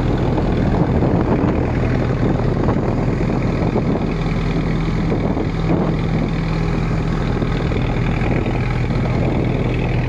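A small boat's engine running steadily, a low even hum, with a rushing wash of water and wind over it.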